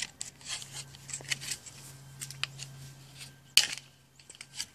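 Tin snips cutting through white vinyl J channel: a run of short, sharp snips, the loudest cut about three and a half seconds in.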